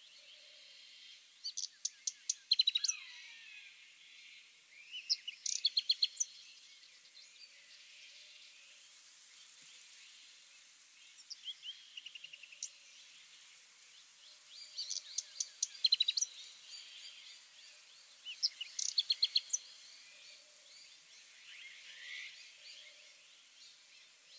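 Songbird singing outdoors: short phrases of rapid high chirps repeated every few seconds, over a faint steady hiss.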